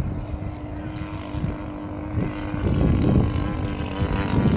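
Engine and propeller of a Hangar 9 Spitfire radio-controlled model plane droning steadily in flight, louder about halfway through as it passes overhead.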